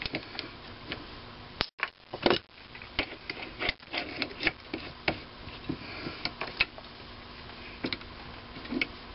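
Scattered small metallic clicks and taps as tooling is handled and fitted on a Sherline mini lathe's tailstock and drill chuck, over a faint steady hum.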